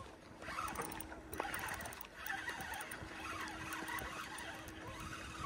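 Spinning reel cranked steadily while a hooked fish is reeled in: a faint whir with small clicks, over a faint steady hum.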